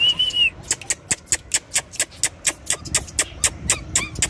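A person's whistle ends about half a second in, followed by rapid, evenly spaced clicking, about four or five a second, like tongue clicks made to call German Shepherd puppies.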